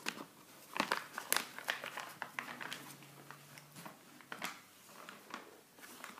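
Handling noise from a blue nylon drogue cone, black tape and a braided nylon rope being worked by hand: irregular rustling, crinkling and scuffing.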